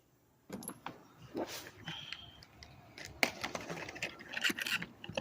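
Spark plugs being handled, clinking and clicking irregularly, starting about half a second in.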